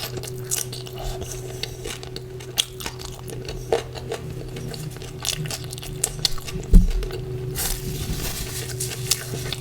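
Close-miked eating sounds of chicken curry with porota: wet chewing, smacking and mouth clicks with scattered light clinks, and one dull thump about seven seconds in, over a steady low hum.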